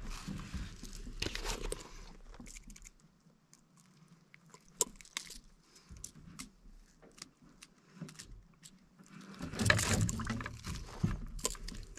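Scattered small clicks and rattles of fishing tackle being handled while a bass is unhooked at the side of a canoe. Near the end comes a louder rustling.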